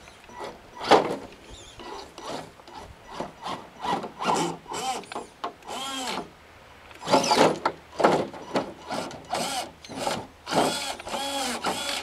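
Electric motor and gear drive of an Axial SCX10 RC crawler whining in repeated short bursts of throttle, the pitch rising and falling with each burst, as the truck crawls over tree roots.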